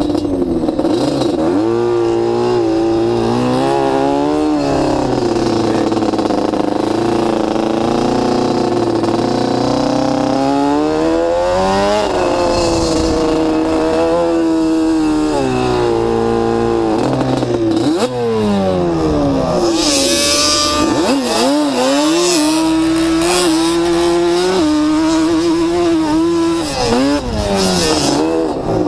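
Sport quad (ATV) engine under hard riding in sand, its pitch climbing and dropping again and again as the throttle is worked and gears change. About two-thirds of the way through there is a brief rush of hiss.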